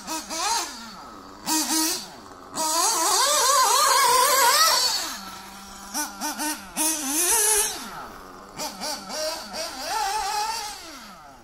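RC off-road cars racing round a track, their motors whining up and down in pitch as they accelerate and slow for the corners. The loudest stretch, from about two and a half to five seconds in, is a car passing close, with a strong hiss along with the whine.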